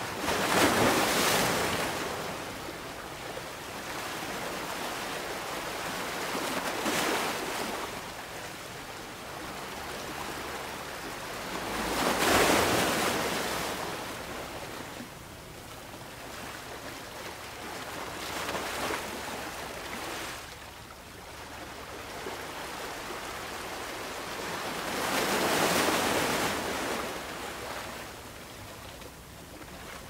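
Ocean waves breaking on a beach, with a surge of surf every six seconds or so and a steady wash of foam in between. The biggest breaks come about a second in, about halfway through, and near the end.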